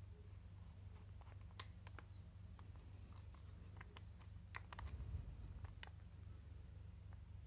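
Faint scattered clicks and handling noise from fingers turning the keyless chuck of a Bosch GSR 12V-15 drill to grip a 0.4 mm drill bit. The clicks come a little thicker and louder about five seconds in, over a low steady hum.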